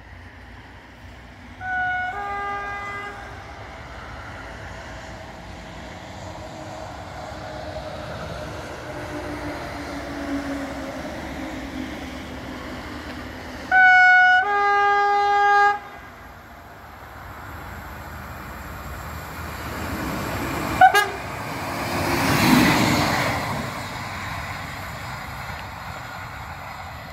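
Approaching train's two-tone horn blown twice, about twelve seconds apart: each blast opens on a higher note and steps down to a lower one. The first lasts about a second and a half, and the second, louder one lasts about two seconds.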